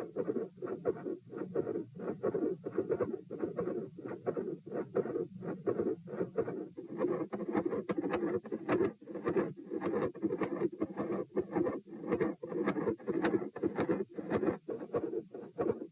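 Heart sounds recorded over the chest at the pulmonic (P) position: a steadily repeating beat with a fixed split second heart sound, extra sounds and sharp clicks. The clicks are plainest in the second half.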